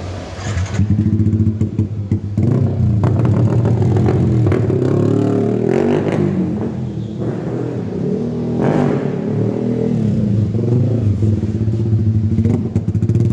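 Yamaha MT15 single-cylinder engine breathing through a loud aftermarket 3Techracing Evolution exhaust, revving up and down repeatedly as the bike is ridden. It gets louder within the first second as the bike pulls away.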